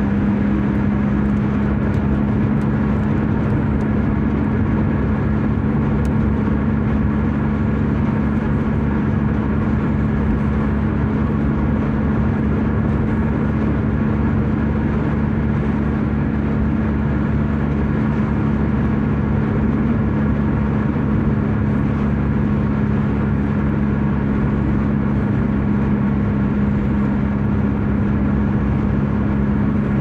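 Steady road and engine noise heard inside a moving car's cabin, an even drone with a constant low hum.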